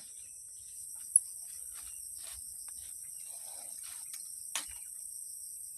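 Steady, high-pitched chorus of insects droning without a break, with a single sharp high tick about a second in and a few faint taps or rustles.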